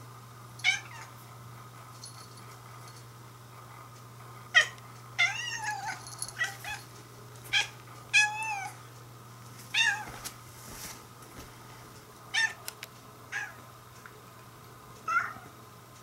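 Orange-and-white domestic cat crying up at a moth flying out of its reach: about ten short, sharp chirping meows, with two longer calls that waver up and down in pitch, the frustrated cries of a cat at prey it cannot get to.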